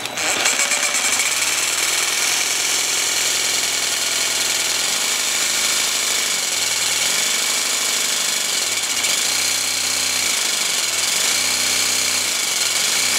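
Jigsaw cutting through tile, its blade chattering steadily against the tile while the motor's pitch rises and falls several times as the speed changes.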